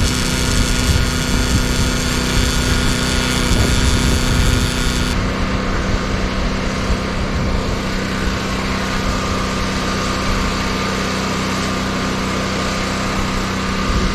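A small engine runs steadily throughout. For the first five seconds a hissing power-tool or welding noise sits on top of it and cuts off suddenly about five seconds in.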